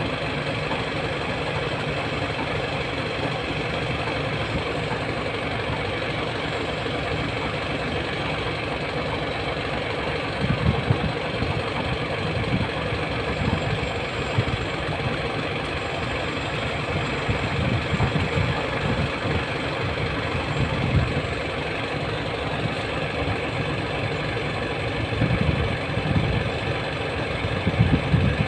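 Hino 700's E13C inline-six diesel engine idling. From about ten seconds in, uneven low thumping swells come and go over the steady running.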